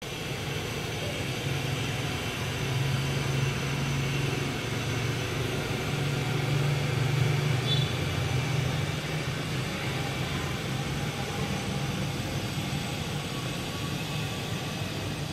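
A steady low mechanical drone with an even rushing noise over it.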